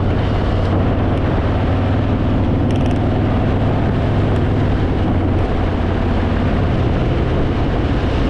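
Harley-Davidson Fat Boy's V-twin engine running steadily while the motorcycle cruises along the road.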